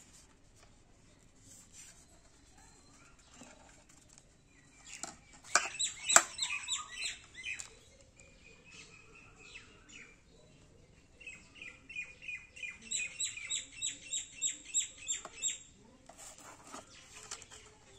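A bird calling: quick series of high chirps, about four or five a second. One bout starts about five seconds in and a longer one comes near the end, with a short held note between them.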